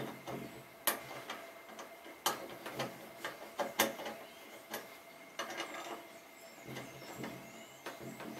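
Allen key working a screw into a metal mounting plate on an aluminium extrusion: sharp metallic clicks at irregular intervals, roughly a second apart.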